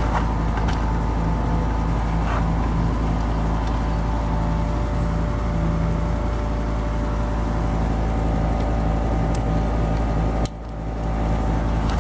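Steady mechanical hum with a few level tones in it, dipping briefly near the end; a few light clicks near the start as a camera tripod is lowered.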